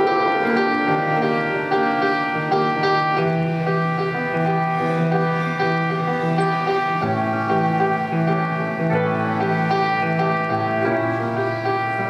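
Petrof grand piano playing a repeating figure over held low bass notes that shift every couple of seconds.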